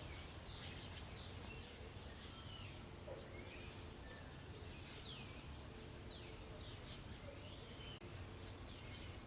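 Faint birds chirping, many short high chirps scattered throughout, over a low steady background hiss.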